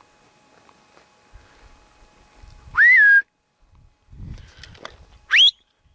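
A person whistles loudly twice. The first whistle rises and then holds a steady note; the second, about two and a half seconds later, is a short sharp upward 'wheet'. Low handling noise sits between them.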